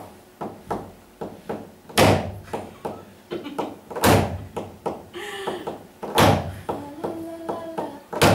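Rhythmic knocking and banging: light knocks two or three times a second, with a much louder bang about every two seconds that rings briefly. Short steady notes stepping in pitch sound faintly through the second half.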